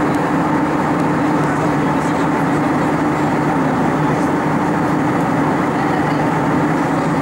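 Steady in-flight cabin noise of an Airbus A320-232 at altitude: an even rush of airflow and engine noise with a steady low hum underneath.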